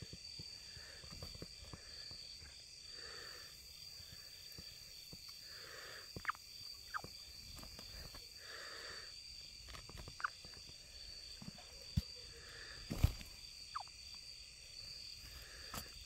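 A steady high insect chorus, crickets trilling, with scattered soft clicks and rustles of handling and one sharper knock about 13 seconds in.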